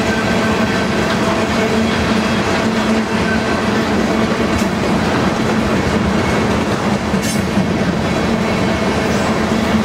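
Freight train of oil tank cars rolling past: a steady rumble of steel wheels on the rails with a rhythmic clickety-clack. A brief sharp high sound comes about seven seconds in.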